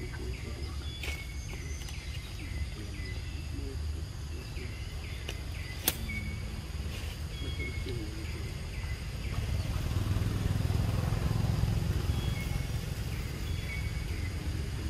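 Outdoor ambience: a steady low rumble that swells from about ten seconds in, with faint short chirps scattered throughout and one sharp click about six seconds in.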